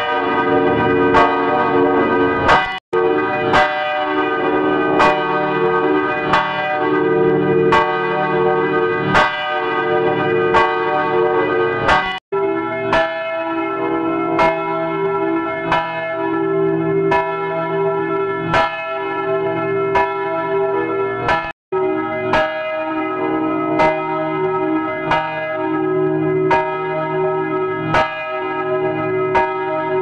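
A church bell ringing, struck over and over at a steady pace with each stroke ringing on into the next, the audio run through electronic effects. The sound cuts out for an instant three times: about 3, 12 and 22 seconds in.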